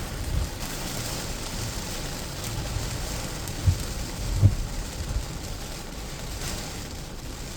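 Steady rain hissing, with a few short low thumps about halfway through.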